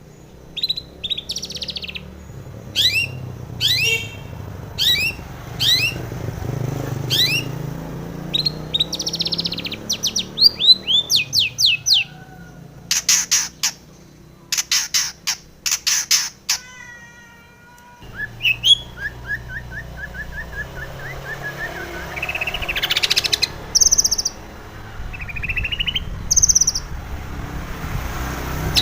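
Female long-tailed shrike (cendet) singing: a series of sharp, falling chirps about once a second, then a fast, varied run of trills and chattering notes. The song breaks off abruptly about two-thirds of the way in and resumes with a different phrase.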